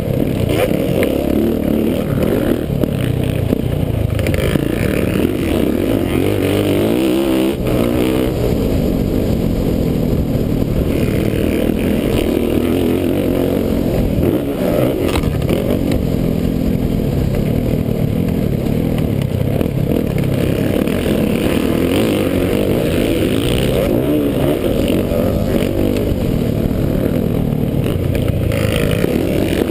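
Motocross bike engine heard from a camera mounted on the bike, running hard under load while riding the track, its pitch rising and falling as the throttle is worked.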